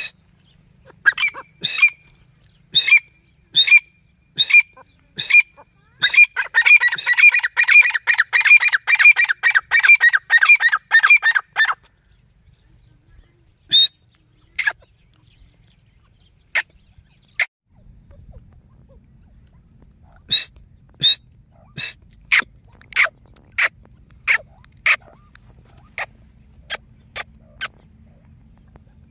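Female grey francolins (teetar) calling: short, sharp, downward-sliding calls repeated about once a second, breaking into a fast dense chattering run partway through, then spaced calls again toward the end.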